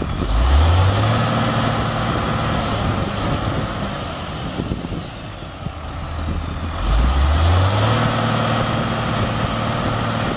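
Diesel engine of a 2000 Sterling T93 mixer truck revving up twice: the pitch climbs quickly, holds high for a few seconds, dies away, then climbs and holds again.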